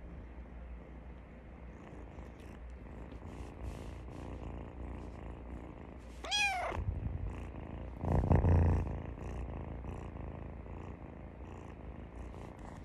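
Orange tabby kitten purring steadily right at the microphone. About six seconds in it gives a brief meow that falls in pitch, and a loud low rumble follows about two seconds later as the purring swells close to the mic.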